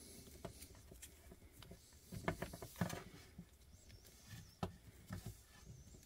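Faint clicks and rustling of wire strippers being worked on plastic-sheathed 14-2 electrical cable, with a few sharper clicks from about two seconds in and near the end.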